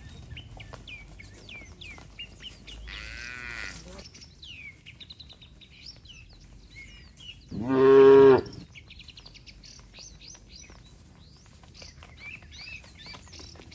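A cow in a walking herd lows once: a single loud moo about a second long, near the middle.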